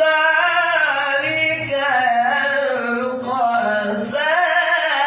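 A man reciting the Quran in an ornamented melodic tajweed style, unaccompanied and with no added echo effects. One long wavering melisma is held and turned across several notes without a break.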